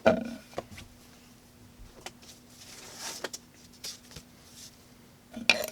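Light handling noises as cutting material is picked up and set out on a table: scattered soft rustles and small clicks, with a louder knock near the end, over a faint steady hum.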